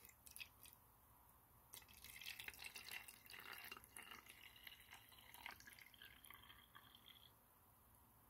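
Clear liquid poured from a plastic cup through a plastic funnel into a narrow bottle, making a faint trickle and drip. It starts about two seconds in and stops about seven seconds in, after a few light clicks at the start.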